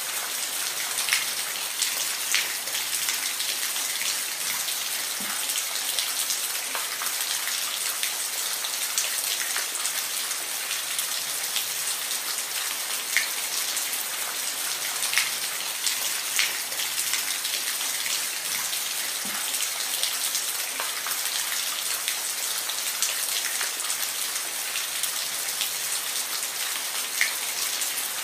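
Steady rain falling, an even hiss with individual drops ticking sharply here and there on a nearby surface.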